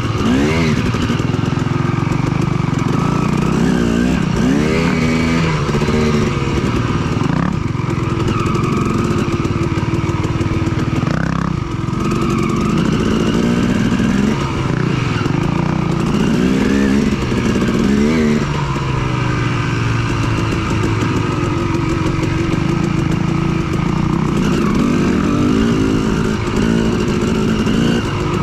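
Yamaha WR450F dirt bike's single-cylinder four-stroke engine under way on a trail, the revs rising and falling over and over as the throttle is opened and backed off every second or two.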